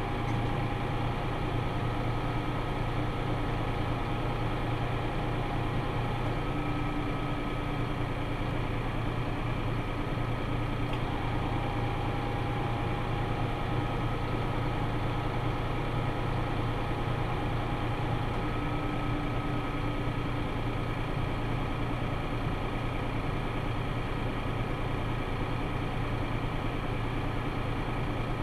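Tractor engine running at a steady speed with an even low hum, with faint higher whining tones that come and go.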